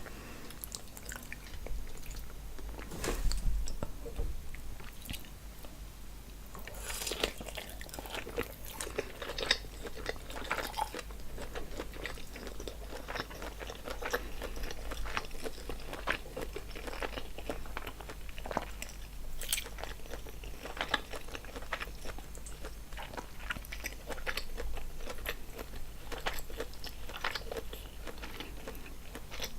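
Close-miked mouth sounds of someone eating seafood boil: irregular chewing, biting and wet smacking, with small crunchy clicks throughout.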